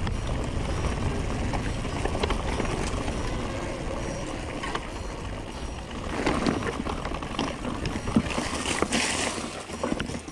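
Wind buffeting a helmet- or body-mounted action camera's microphone, a steady low rumble. Brief louder rustling noise comes about six and nine seconds in.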